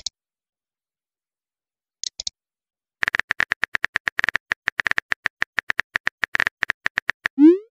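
Simulated phone-keyboard typing sound effect: a fast, even run of short clicks, about nine a second, starting about three seconds in as a text message is typed. It is followed near the end by a short rising blip. A couple of faint ticks come about two seconds in.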